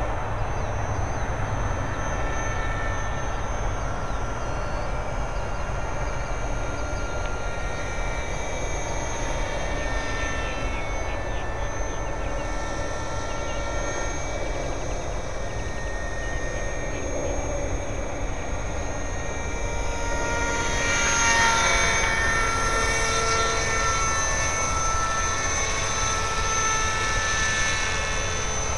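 450-size electric RC helicopter with an EC-135 scale body flying: a steady whine from the motor and rotor, with several tones that drift up and down in pitch as it manoeuvres. It grows louder and brighter about two-thirds of the way through.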